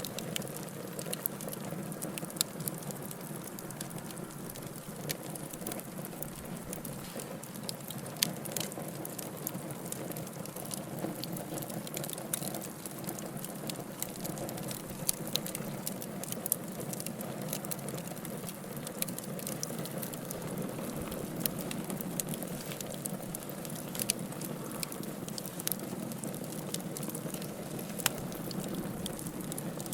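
Wood campfire burning with a steady low rush of flames and frequent sharp crackles, and now and then a louder pop.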